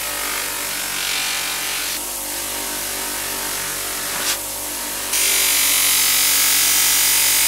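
An electric motor spins a cloth buffing wheel with a steady hum while a yellow plastic screwdriver handle is pressed against it and polished, the wheel hissing as it rubs. The hiss gets louder about five seconds in, as the handle is worked harder against the wheel.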